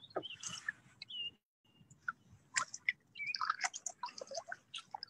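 Birds chirping in short calls, mixed with small scattered clicks and light water sounds. The sound drops out completely for a moment about a second and a half in.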